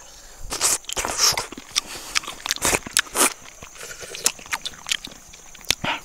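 A man biting and chewing pieces of cooked fish skin with the scales still on, up close to the mouth. A quick run of loud bites and chews comes in the first half, then softer chewing with scattered clicks and a couple of sharper bites near the end.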